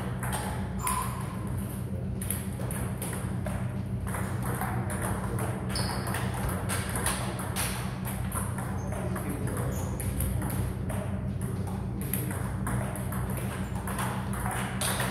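Table tennis rally: the celluloid-type ball clicking off bats and table in quick, irregular succession, over a steady low hum.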